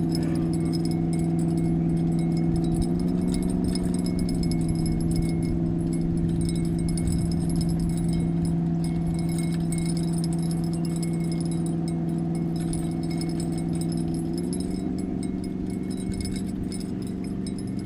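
A boat motor hums steadily, its pitch stepping up slightly twice, with faint light ticking and jingling above it.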